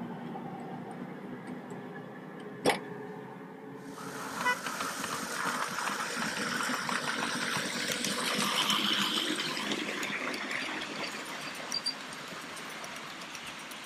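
A ride-on miniature railway train's wagons rolling past on the track, a dense clattering rattle of wheels on rail that grows louder and then eases off. About three seconds in there is a single sharp clack before the train noise starts.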